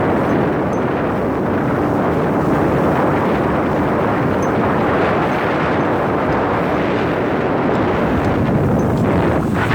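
Boat's outboard motor running steadily at speed, mixed with wind buffeting the microphone and the rush of water.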